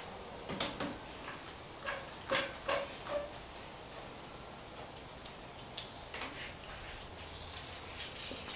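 A scattered run of sharp clicks and light knocks, bunched in the first three seconds, as a one-handed bar clamp is worked and set on the edge of a plywood trough wall; a few fainter ticks follow.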